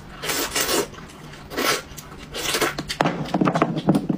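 Close-miked eating sounds of a person sucking and gnawing meat off a bone from a braised sheep's head: a few short noisy bursts, then a longer crackly stretch near the end.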